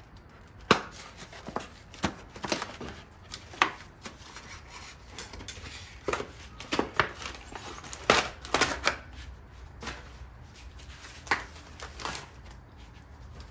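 Scissors snipping through packing material, and foam packing wrap being pulled and crinkled off a new bike. The sound is a string of sharp clicks and short rustles at uneven intervals.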